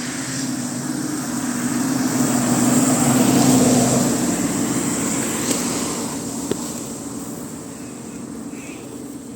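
A car passing by, its engine and tyre noise growing louder to a peak about a third of the way in and then fading away.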